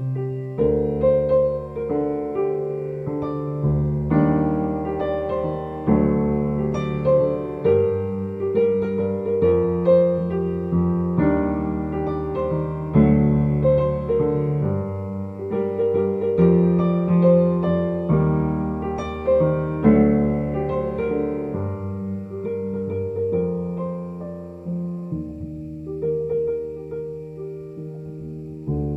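Slow solo piano background music: chords struck about every two seconds, each fading, under a simple melody.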